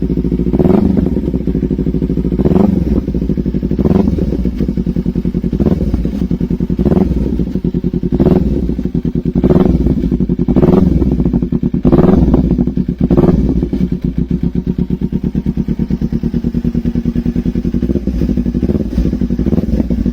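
Kawasaki Z250 motorcycle engine running on a cold start, idling with about ten short throttle blips spaced roughly a second and a half apart, then settling to a steady idle for the last several seconds.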